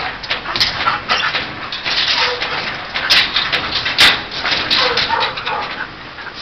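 Excited shepherd dogs whining and giving short yelps while they jump up against a sheet-metal gate, with several sharp knocks of paws striking the metal, the loudest about four seconds in.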